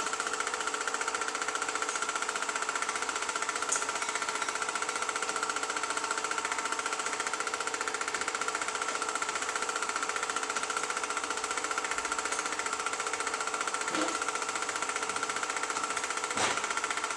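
Film projector running: a steady, rapid mechanical clatter with a constant whine, unchanged throughout.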